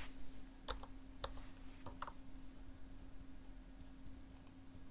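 A few sharp clicks of computer keys or mouse buttons in the first two seconds, some in quick pairs, with faint ticks near the end, over a steady low hum.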